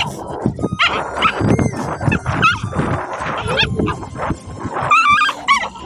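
Young dog whining and yelping in a string of short, wavering high-pitched cries, the loudest about five seconds in.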